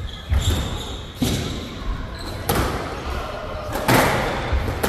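Squash rally: the ball cracking off rackets and the court walls, about four sharp hits a second or so apart.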